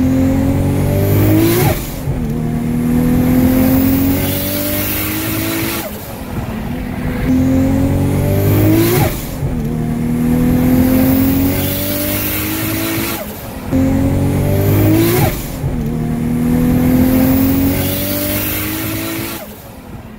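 Turbocharged Nissan Skyline R34 25GT-T straight-six accelerating hard, its pitch climbing steadily and then dropping sharply at each gear change, in three repeated pulls.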